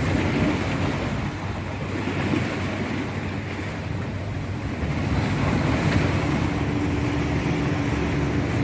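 Sea surf washing against a breakwater of concrete tetrapods, with wind buffeting the microphone. A steady low hum comes in about two-thirds of the way through.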